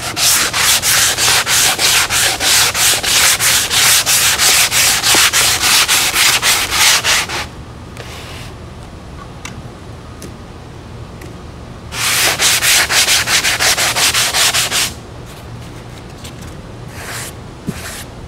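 Handled 80-grit sanding block rubbed back and forth over a spackled foam model-airplane wing, in quick rasping strokes about three a second. The sanding stops for about four seconds, then resumes for about three seconds before stopping again.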